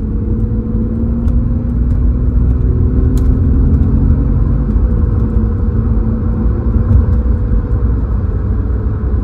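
Inside the cabin of a moving BMW 330Ci (E46) with its 3.0-litre straight-six: steady low road and engine rumble. The engine note holds steady, then eases slightly about halfway through.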